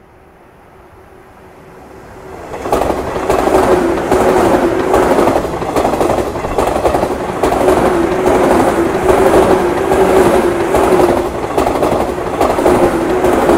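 JR 185 series electric train passing close by. It comes in suddenly about two and a half seconds in, then keeps up a loud, steady rush of wheels on rail, with a repeated clatter over the rail joints and a steady hum underneath.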